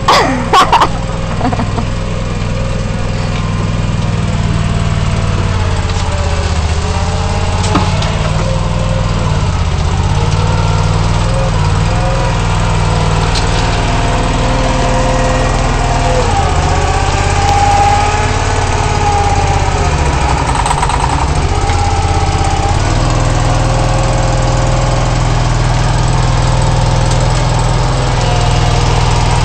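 Toro Dingo tracked compact loader's engine running steadily under work, with a whine that rises and falls over and over as the machine digs and lifts dirt and stone. Right at the start there are a couple of brief, loud high-pitched squeals.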